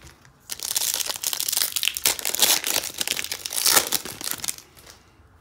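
Foil wrapper of a 2018 Optic football card pack crinkling as it is torn open by hand. The crackling starts about half a second in and stops near the end.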